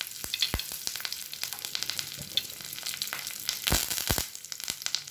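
Fresh curry leaves sizzling in hot refined oil in a nonstick frying pan, with frequent sharp crackles. The crackles are loudest about four seconds in.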